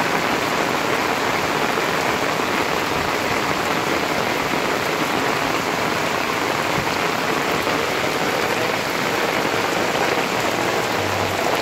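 Heavy rain falling steadily on paving and on a flooded street, a continuous even hiss.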